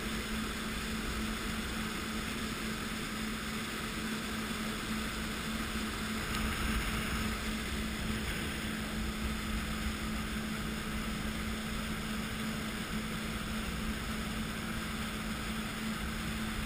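Jet ski running steadily at speed: a constant engine hum under the rush of water churning in its wake.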